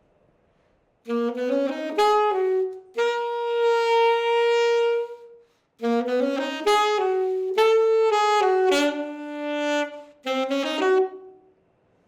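Saxophone played solo: two phrases of quick notes, the first settling into a long held note, the second stopping abruptly about a second before the end. The player breaks the phrase off rather than finishing it.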